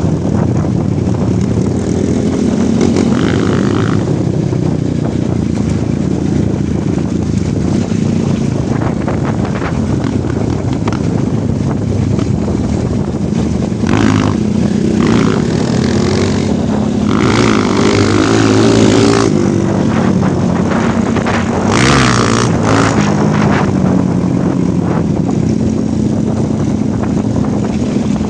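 Off-road motorcycle engine running under way, its note shifting with the throttle, with a few brief louder surges of higher-pitched noise around the middle.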